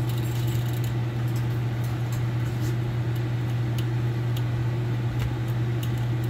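Steady low hum, with a few faint light ticks from copper stator windings being handled and pulled apart.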